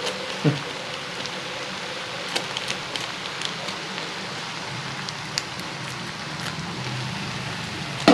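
Onions and green chillies frying in hot oil in a kadhai, a steady sizzle, with a few light clicks over it.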